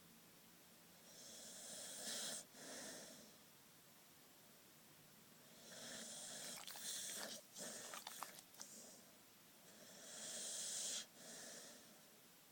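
A sleeping puppy snoring softly: three slow breaths about four seconds apart, each a longer hiss, a brief break, then a shorter one, with a few clicks through the middle breath.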